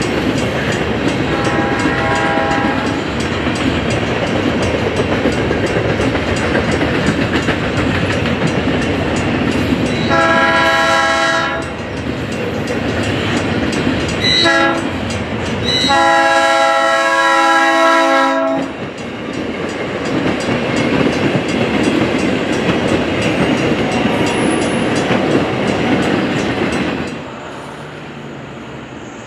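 South Shore Line electric commuter train sounding its horn for a grade crossing in the standard pattern: long, long, short, long, the last blast held longest. A steady rumble of the approaching train on the rails runs beneath, dropping away near the end.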